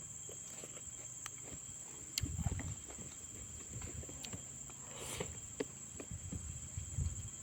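Close-up eating sounds of someone eating fish head: chewing and lip smacks with small wet clicks, coming in short clusters. A steady faint high whine runs underneath.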